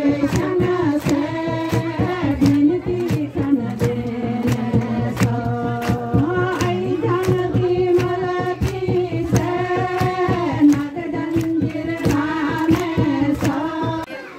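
Voices singing a melody with long held notes over a steady percussive beat of about three to four strokes a second. The song cuts off near the end.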